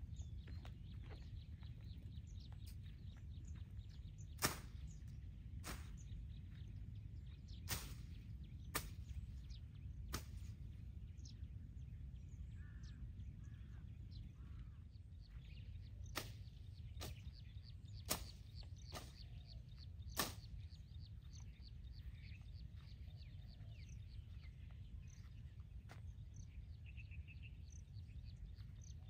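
Quiet outdoor background with a steady low rumble and faint bird chirps. About ten sharp, irregular knocks fall through the first twenty seconds, a few loud and the rest soft, and then stop.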